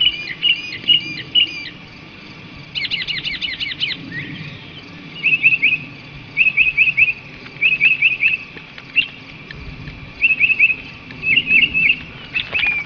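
Mockingbird mimicking a car alarm: a few repeated chirps, then a fast run of rising sweeps, then groups of three or four quick notes repeated about every second.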